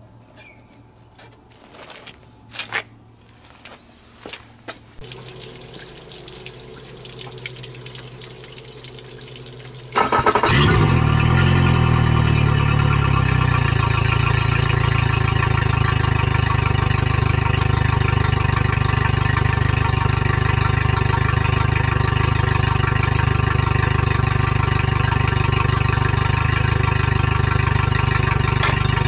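A few clicks and knocks as a flushing muff is clamped onto a Yamaha 50 hp four-stroke outboard's lower unit, then hose water starts running about five seconds in. About ten seconds in the outboard, a three-cylinder, starts and settles at once into a steady, smooth idle: the normal sound of a healthy engine.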